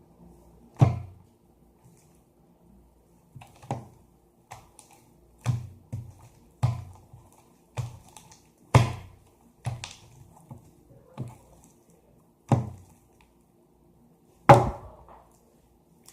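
Goopy dish-soap slime being pressed and slapped by hand, making about a dozen short, soft, wet thuds at irregular intervals, two of them louder.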